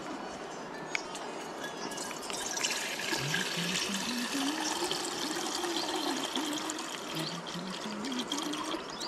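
Steady rush of a shallow, rocky river flowing. About three seconds in, and again about seven seconds in, a low wavering tone rises in steps over it.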